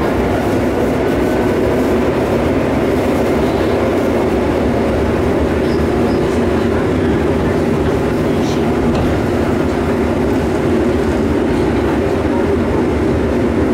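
Seoul Subway Line 2 train running at speed, heard inside the passenger car: a steady, unbroken running noise of wheels on rails and the car's motors.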